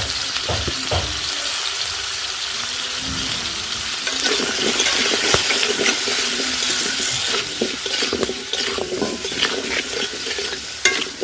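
Potato pieces sizzling as they fry in hot oil in a kadai, stirred with a spatula that scrapes and knocks against the pan. The sizzle grows louder about four seconds in.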